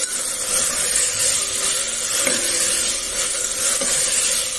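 Black chana and white peas frying in oil in an open pressure cooker with a steady sizzle, while a steel ladle stirs and scrapes through them. The water has almost cooked off and the oil is separating.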